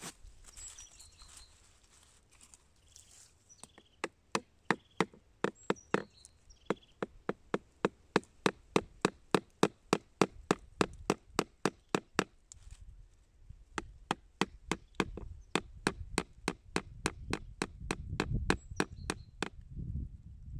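Metal blade of a screwdriver-type tool chipping into the rotten wood of a strawberry-tree stump, a run of sharp knocks at about three a second with a short break partway through. A low rumble of wood being worked loose runs under the later knocks.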